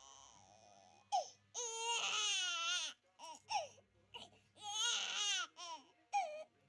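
Young baby crying in bouts: a long wailing cry about one and a half seconds in, short sobbing cries and whimpers after it, then another long cry about five seconds in.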